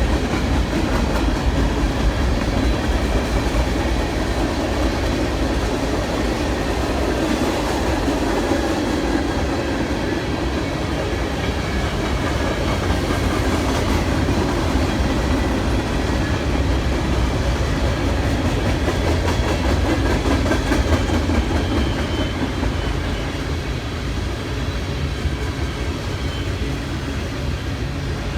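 Freight cars of a BNSF manifest train rolling past steadily, steel wheels running on the rails with a low rumble and occasional clicks, easing slightly near the end.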